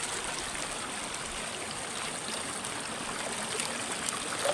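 Shallow river flowing over rocks: a steady rush of water, with a couple of faint clicks near the end.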